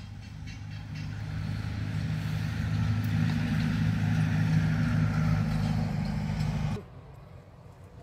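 A motor engine running steadily, growing somewhat louder over the first few seconds, then cutting off suddenly near the end.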